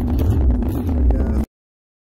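Intro sound track: a loud, low rumble that cuts off abruptly about one and a half seconds in, followed by dead silence.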